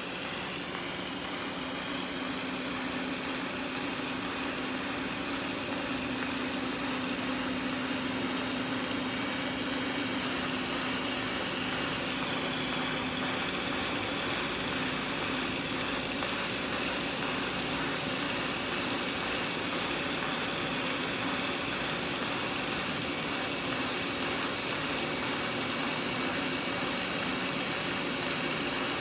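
Steady machine noise, an even hiss with a low hum, running unchanged throughout.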